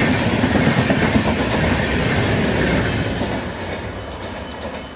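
Express train's coaches rushing past at speed, wheels clattering over the rail joints; the rushing sound fades about three seconds in as the end of the train goes by.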